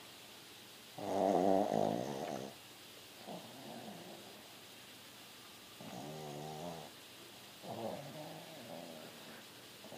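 Pug snoring in its sleep: four snores a second or two apart, the first, about a second in, the loudest.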